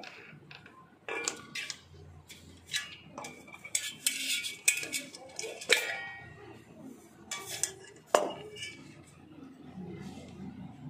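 Stainless-steel mixer-grinder jar and its blade assembly being handled: an irregular string of sharp metal clinks and clanks, some ringing briefly, the loudest near the middle and again about eight seconds in.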